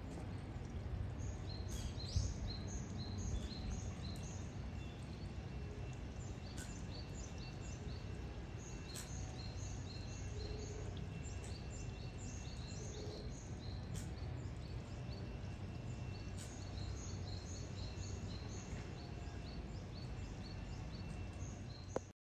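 Small birds chirping over and over against a steady low background rumble, with a few sharp clicks; the sound cuts off suddenly near the end.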